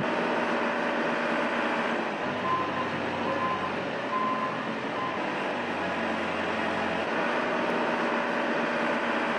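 Heavy machinery running: diesel engines of an excavator and a dump truck at work, with a backup alarm beeping four times near the middle.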